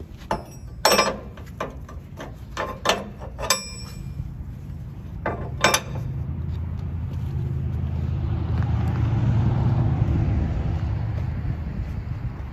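A few sharp metallic clanks with a short ring, then a vehicle engine running, its low rumble building up through the middle and holding steady.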